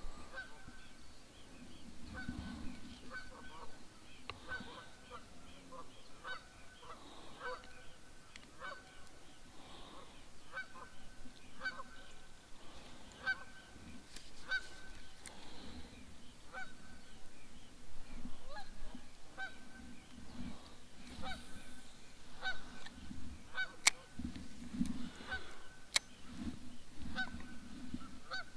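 Geese honking, short calls repeated about once a second, over a low rumble, with two sharp clicks near the end.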